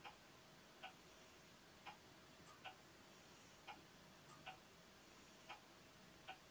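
Near silence with faint, regular ticking, about one tick a second, the gaps alternating slightly shorter and longer.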